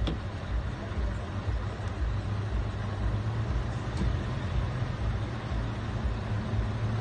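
Diesel engine of a heavy truck tractor unit running at low speed as it creeps forward, a steady low rumble.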